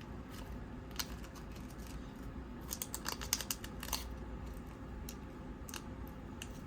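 A tarot deck being slid back into its cardboard box: light clicks and scrapes of cards and card stock, thickest about three seconds in.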